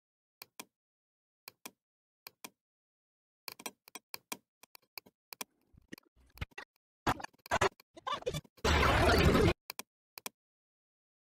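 Computer mouse clicking, first in quick press-and-release pairs, then in a busier run of clicks and knocks. A loud burst of rough noise, about a second long, comes near the end.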